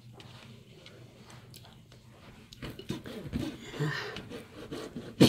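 Faint scraping and small clicks of a meat cleaver working through tough beef sausage sticks on a cutting board, with one sharp knock near the end.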